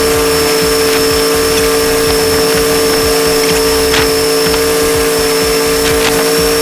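A large wind-making machine running at a constant speed, giving a steady hum with a thin high whine, while gusts buffet with an irregular low rumble. A few faint ticks and rattles come through, one a little clearer about four seconds in.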